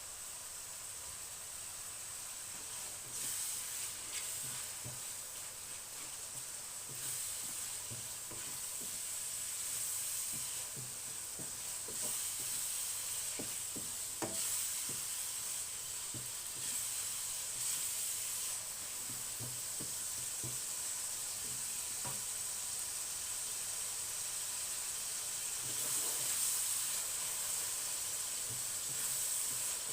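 Chicken breast pieces sizzling steadily as they fry in hot oil in a pot, with scattered clicks and scrapes of a utensil stirring them.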